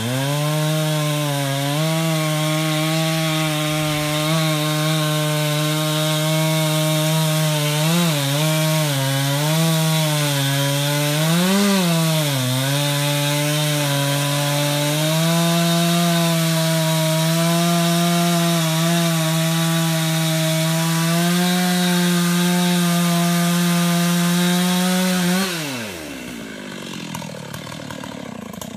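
Gas chainsaw running at high speed while cutting into the trunk of a large walnut tree, its pitch dipping and recovering a few times as the bar loads in the wood. Near the end the throttle is released and the engine winds down to idle.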